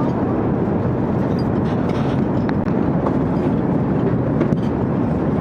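Steady low rumble of an airliner cabin in flight: engine and airflow noise heard from inside the cabin, with a few faint clicks.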